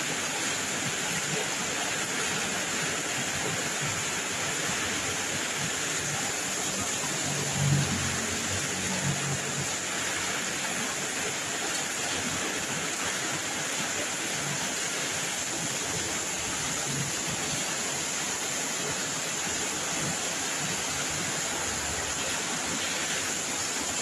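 Rain falling steadily, a dense even hiss. A brief low rumble rises and fades about a third of the way through.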